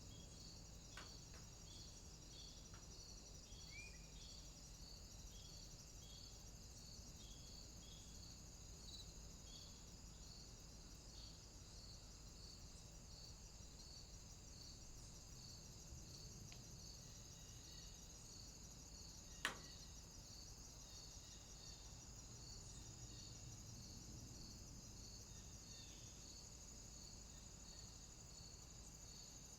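Faint summer outdoor ambience of insects: a regular high chirping, about two pulses a second, over a continuous high-pitched insect drone, with a low steady rumble beneath. A single sharp click stands out a little past the middle.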